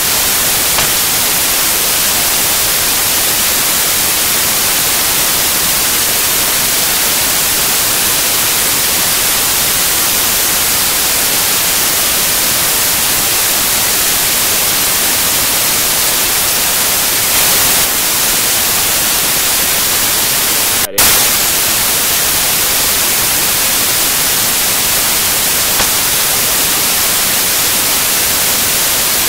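Loud, steady static hiss, like white noise, with a brief cut-out about 21 seconds in.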